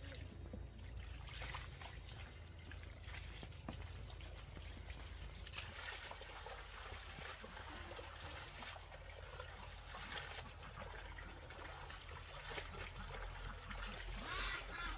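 Faint trickling water, with brief louder splashes a few times.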